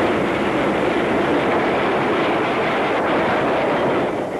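Steady, loud, even noise of a vehicle on the move, falling away sharply at the very end.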